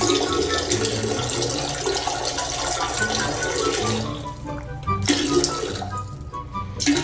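Water running in a rushing stream for about four seconds, again about five seconds in and briefly near the end, over background music.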